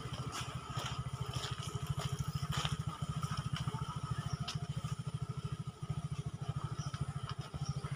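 A small engine idling with a steady, fast low throb of about ten beats a second, with a few faint clicks over it.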